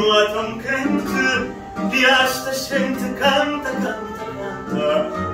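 Fado being performed: a singer's voice over plucked guitar accompaniment.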